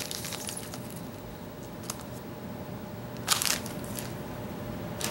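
Plastic soft-bait packages crinkling and rustling in the hands, in scattered short bursts with a louder crinkle about three seconds in.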